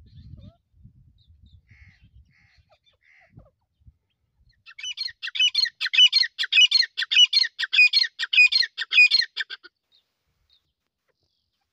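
Grey francolin calling: after a few soft chirps, a loud run of shrill, repeated sliding notes, about three a second, starts about five seconds in and lasts around five seconds before stopping.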